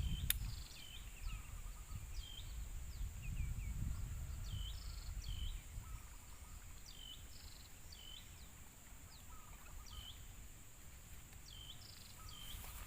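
Outdoor rural ambience with a bird calling over and over in short, high chirps that dip and rise, every second or so, over a steady high insect drone and a low rumble. A single sharp click sounds just after the start.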